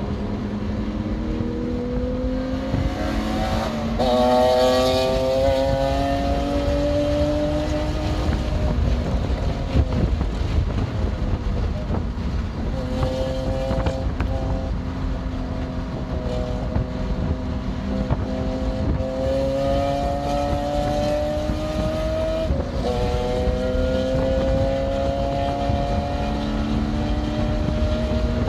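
BMW M2 Competition's twin-turbo straight-six pulling hard on track, the revs climbing steadily and dropping sharply at each upshift. About a third of the way in the revs fall away briefly before it accelerates again.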